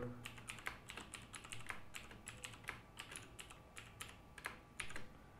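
Computer keyboard keys clicking as a password is typed: an irregular run of faint keystrokes, several a second.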